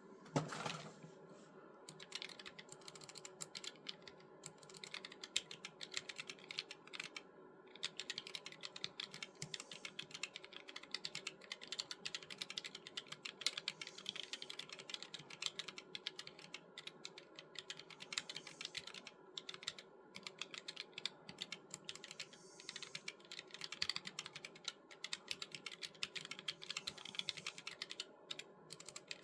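Fast, continuous typing on a ZSA Voyager low-profile split keyboard fitted with 3D-printed keycaps: a rapid clatter of key clicks, with a short pause about a quarter of the way in. A single knock comes just at the start, before the typing begins.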